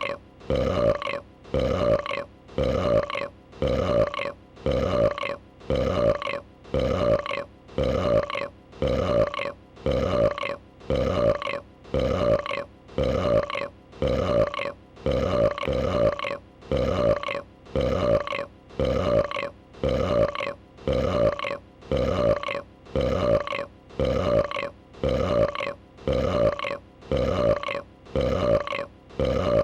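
A female dragon's burp, the same short belch repeated over and over at an even pace, slightly more than once a second, like a looped sound effect.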